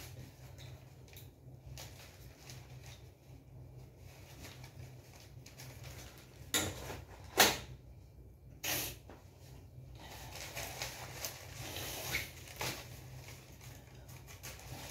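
Sheets of paper being handled and shuffled by hand: soft rustling with a few sharp snaps or taps, the loudest about seven and a half seconds in, over a low steady hum.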